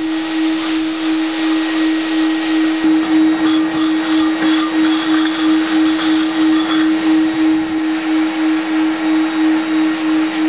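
Big Brute industrial vacuum cleaner running steadily with a strong hum and a hiss of rushing air, the hum pulsing slightly. In the middle a scatter of rattles comes in as loose granules are sucked off concrete up a metal wand and hose into a steel drum under an Interceptor lid.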